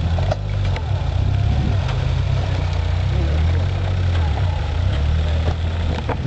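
Off-road 4x4's engine running steadily at low revs, a deep, even rumble.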